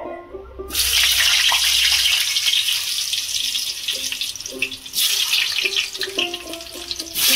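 Peeled potato pieces sizzling loudly in hot refined oil in a kadai, starting about a second in as the first pieces go into the oil. The sizzle jumps up again at about five seconds and once more near the end as more pieces are dropped in.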